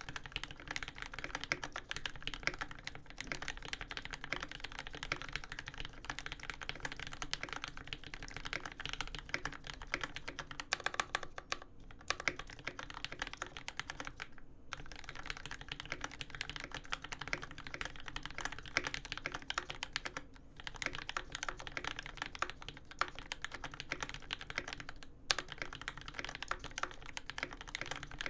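Fast, continuous typing on a custom mechanical keyboard with lubed Tealios v2 linear switches in Cherry top housings, an aluminium plate and GMK keycaps, broken by a few brief pauses.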